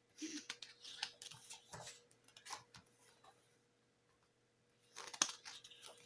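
Pages of a small, stiff-papered CD booklet being turned and handled: soft paper rustles and small clicks, a short lull, then a louder rustle about five seconds in. A faint steady hum runs underneath.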